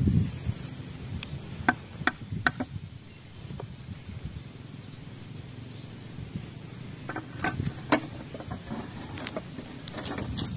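Sharp wooden knocks and taps from hands working with wood and tools on the ground, coming in small clusters a couple of seconds in and again near the end. A bird's short high chirp repeats every second or so through the first half, over a low rumble.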